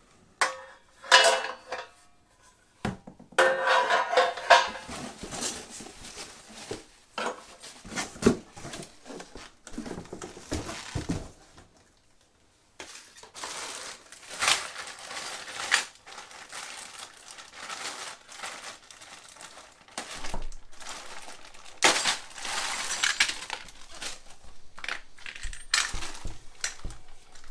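Steel parts of a mitre saw stand clanking and clinking as they are lifted and set down on a tiled floor, then a bag of bolts and small metal fittings rattling as it is opened and sorted. The knocks are irregular, with a brief silent gap near the middle.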